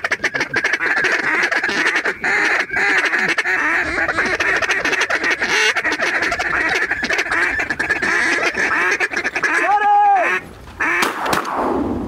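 Duck quacking and chatter, a steady rapid stream of calls, with one drawn-out higher call about ten seconds in.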